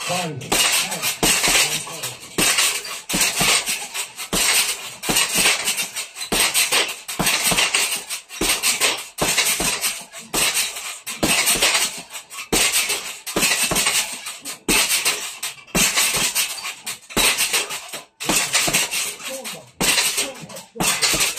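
Boxing gloves striking a hanging heavy bag in rapid flurries of punches, several hits a second, with short breaks between combinations.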